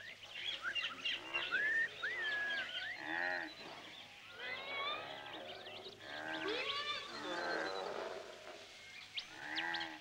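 Jungle ambience sound effects: many birds chirping and trilling, with several drawn-out, rising-and-falling lower animal calls among them.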